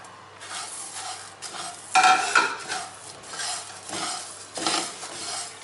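Whole cumin and coriander seeds tipped into a dry non-stick frying pan, then stirred with a plastic spatula: repeated rustling scrapes of seeds across the pan, the loudest about two seconds in. The seeds are being dry-roasted with no oil.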